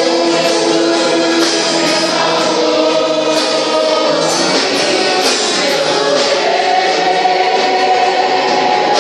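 Gospel worship music: a choir singing long held notes over a band, with regular percussion hits.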